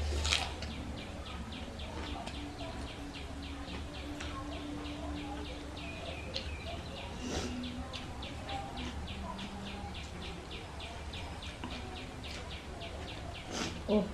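Steady rhythmic high chirping, about three or four chirps a second, over a low hum. Two brief louder mouth sounds of eating come just after the start and near the end.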